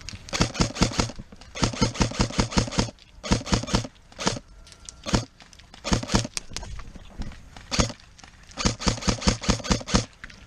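Airsoft guns firing full-auto, in about seven bursts of rapid sharp shots at roughly eight to ten a second, some bursts long and some short.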